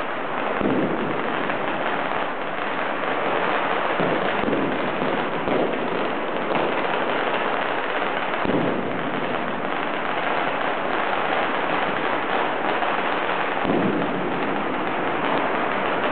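Fireworks and firecrackers going off in a dense, continuous crackle, with louder bangs every few seconds.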